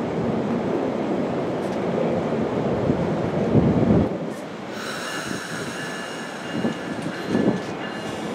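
Amtrak Northeast Regional passenger train standing at the platform, running with a steady low rumble that swells just before the middle. About five seconds in, a high-pitched whine of several steady tones starts and holds, with the train about to depart.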